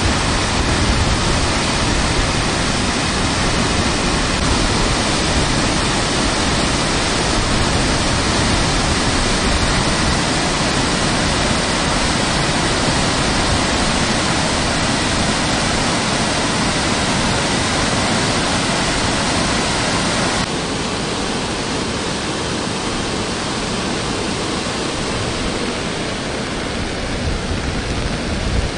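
Floodwater rushing and churning as white water over rocks and a concrete weir step, a loud, steady rush of water from a rain-swollen canal. The rush drops somewhat in level about twenty seconds in.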